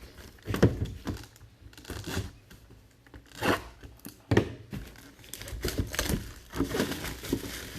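Packaging being handled: irregular crinkling and tearing, with a few sharper crackles spread through.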